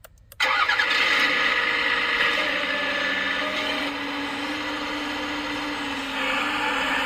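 Electric hydraulic pump of a 1/14-scale RC Volvo excavator cutting in abruptly about half a second in, then whirring steadily under load as the boom and bucket cylinders move. It eases slightly around four seconds in and picks up again a little after six.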